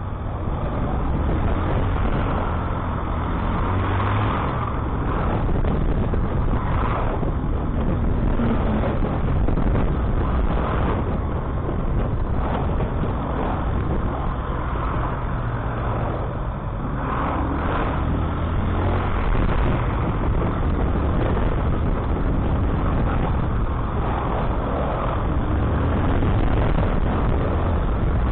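Bajaj Boxer motorcycle's single-cylinder engine running steadily while riding slowly through traffic on a wet road, with tyre hiss from the wet tarmac and the noise of lorries alongside.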